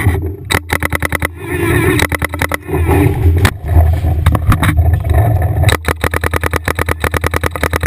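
Paintball marker firing reballs in rapid strings, about ten shots a second, with a rough rumbling noise between the strings.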